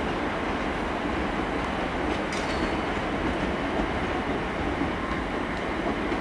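Great Western Railway Class 387 electric multiple unit moving through the station: a steady noise of wheels on rail.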